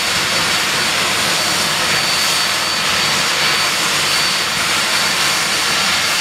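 Rolls-Royce Conway turbofan engines of a Handley Page Victor K.2 running on the ground during start-up: a loud, steady rush with a constant high-pitched whine over it.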